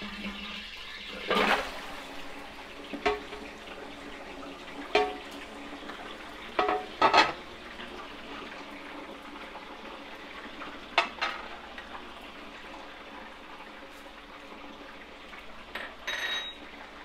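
Raw meat chunks tipped into hot oil in a large stainless steel stockpot, with a steady sizzle and several loud knocks and clatters as the pieces and their container strike the pot. A short ringing clink sounds near the end.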